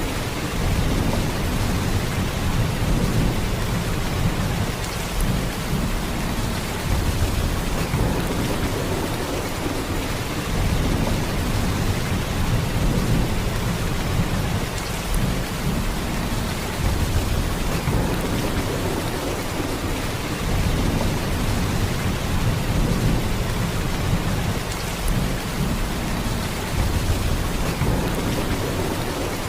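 Heavy rain falling in a steady downpour, a dense, even hiss with a deep low rumble underneath.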